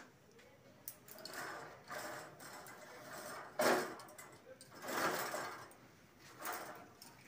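Cloth rubbing over a metal wire dish rack, the rack rattling and scraping in several spells of about a second each.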